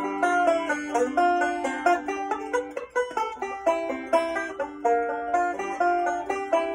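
Banjo played solo: a steady, quick stream of picked notes ringing over one another.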